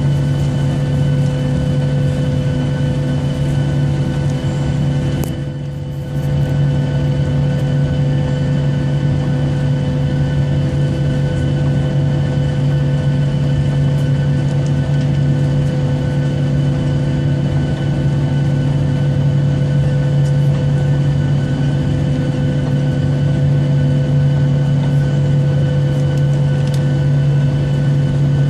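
Jet airliner's engines heard from inside the passenger cabin as the plane moves on the ground before takeoff: a loud, steady drone with a strong low hum and fainter higher tones. The sound dips briefly about five seconds in.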